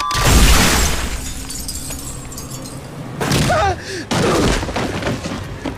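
Film sound effect of a White Walker shattering into ice when stabbed with a dragonglass dagger: a deep boom with crackling, splintering ice. About three seconds in come a person's short gasping cries.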